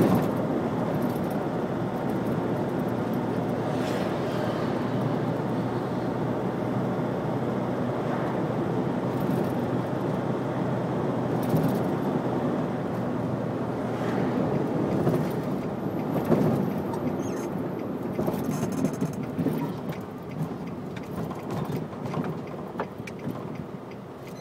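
Steady road and engine noise from a car driving through city traffic, turning quieter and more uneven over the last few seconds.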